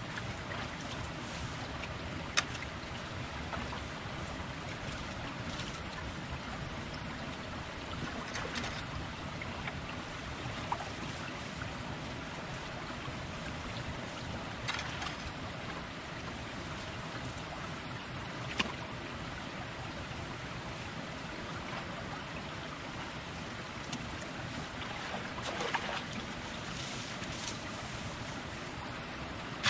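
Steady rush of shallow creek water, broken by a few short, sharp knocks about every five seconds.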